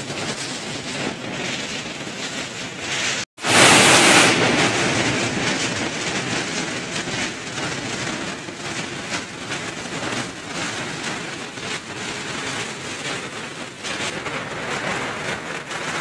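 Steady rush of falling water from a small waterfall and heavy rain. The sound cuts out for an instant about three seconds in and comes back louder for about a second.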